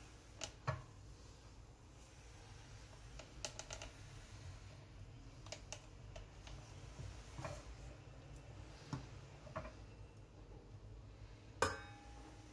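Faint scattered clicks and knocks of a Thermos Shuttle Chef's stainless steel inner pot lid being handled while it is wiped with a cloth, then near the end a sharper metal clink with a short ring as the lid is lifted off the pot.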